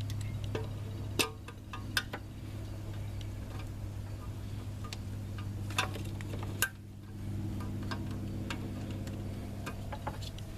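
Light metallic clicks and ticks of small bolts being placed and started by hand around the transmission, four sharper clicks standing out, over a steady low hum.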